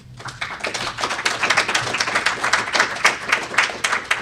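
Audience applauding: many hands clapping, building up over the first second and then holding steady.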